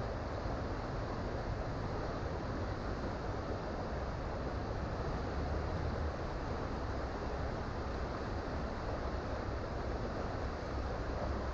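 Creek water rushing and burbling in a steady, unbroken flow, with a deep rumble underneath.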